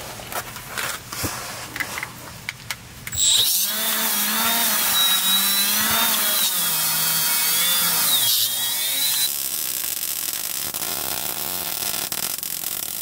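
A few clicks and knocks, then a small cordless right-angle die grinder running hard against the steel leaf-spring hanger, its pitch wavering up and down as the wheel bears on the metal while the hanger is cleaned for welding. A little past halfway it gives way to the steady crackling hiss of a wire-feed welder laying a bead on the hanger.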